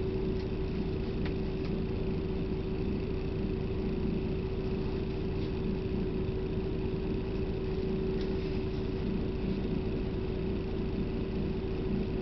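Steady low drone of a bus cabin, with a constant hum running under it and a few faint ticks.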